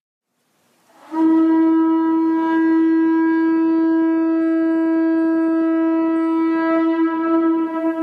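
Conch shell trumpet (atekokoli) blown in one long, steady note, starting about a second in.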